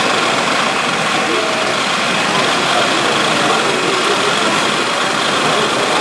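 Steady mechanical running noise from radio-controlled model construction machines at work, an even drone with no distinct knocks or changes.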